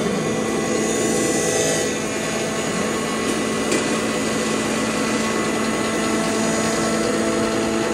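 Electric cumin (jeera) grinder running steadily with a constant hum and a grinding noise as cumin seeds are fed by hand into its stainless hopper.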